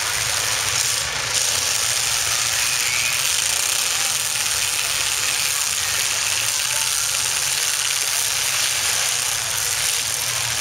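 Several demolition derby cars' engines running together in the arena, a steady, unbroken engine noise.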